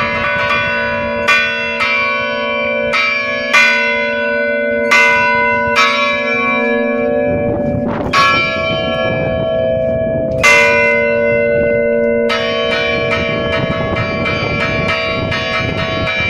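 Church bells rung by hand close up in the belfry, their clappers pulled by ropes. Several strong strikes ring on over one another, then past the middle the strokes come fast and dense in a quick peal.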